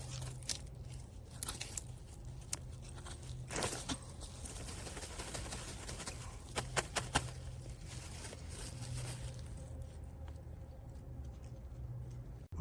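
Scattered rustling and crackling over a steady low hum, with a quick run of sharp ticks about seven seconds in.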